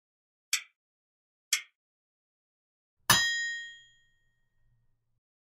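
Quiz countdown timer sound effect: two short ticks a second apart, then a bright bell-like ding about three seconds in that rings out for about a second. The ding marks the end of the answer time.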